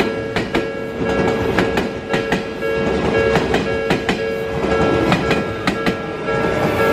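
Odakyu 3000 series train's wheels clacking over rail joints in an uneven series of sharp clacks, often in pairs. A level crossing alarm rings with a steady tone underneath.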